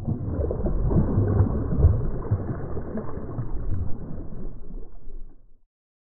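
Shallow water splashing and churning as a released striped bass thrashes and swims off. The splashing cuts off suddenly near the end.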